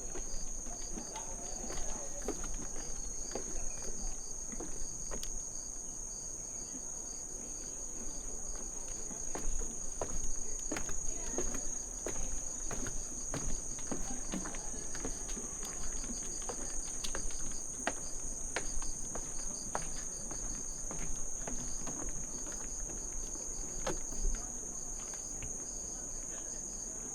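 Insects trilling steadily in a high, even drone with a faster pulsing chirp beneath it, over irregular footsteps on a hillside path.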